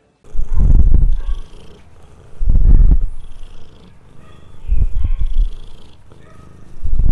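Domestic cat purring loudly, the purr swelling and fading in four waves about two seconds apart.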